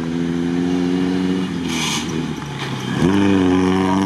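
Jeep Cherokee XJ engine under hard throttle as the truck drives past close by, growing louder as it approaches. About two and a half seconds in the revs dip briefly, then climb again and hold.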